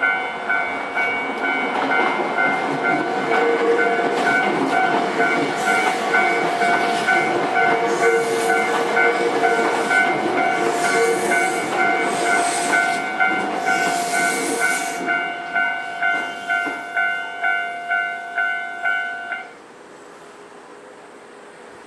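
Japanese level-crossing warning bell ringing in an even, repeating ding-ding while a train passes over the crossing with a rumbling, clattering run. The bell cuts off suddenly about three seconds before the end.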